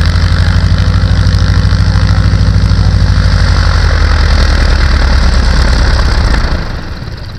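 A nearby engine idling loudly with an even, low throb, which drops away about six and a half seconds in.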